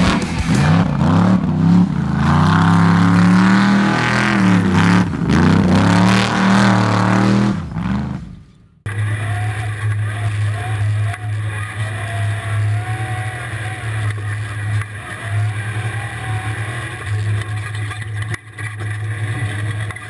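Off-road trophy truck's Ford V8 running hard, its pitch rising and falling with throttle and gear changes. After a sudden cut about nine seconds in, it gives way to a steadier, quieter engine drone.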